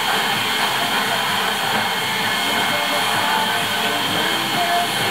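Build-A-Bear stuffing machine's blower running steadily, a constant rush of air blowing fluff through the spike into a plush monkey to stuff it.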